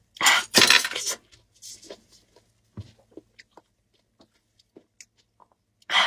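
Close-miked eating sounds: loud bites and crunchy chewing of an underripe fruit in the first second, then faint clicks, mouth sounds and handling noises, with another loud bite right at the end.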